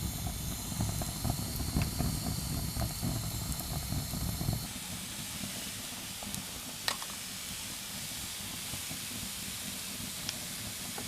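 A steady hiss with scattered small clicks over a low rumble. The rumble drops away suddenly about halfway through, leaving the hiss and a few sharp clicks.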